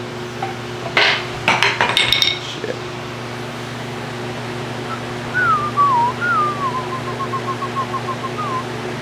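A few sharp metal clinks with brief ringing, as steel tools are handled, about a second in. Later a short whistled phrase: two falling glides, then a quick run of short repeated notes. A steady hum runs underneath.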